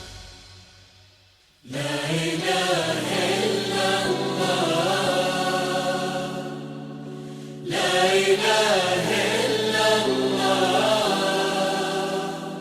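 Zaffa wedding music. The preceding music fades out over the first second and a half. Then a group of voices chants in unison over steady held low notes, with a second phrase starting about 8 seconds in.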